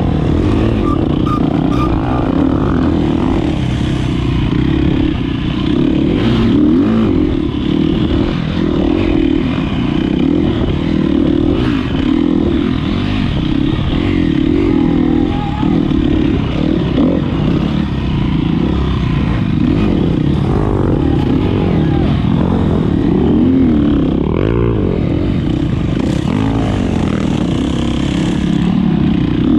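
2013 KTM 250 XC-F four-stroke single-cylinder dirt bike engine running hard under race load, its pitch rising and falling continuously with the throttle.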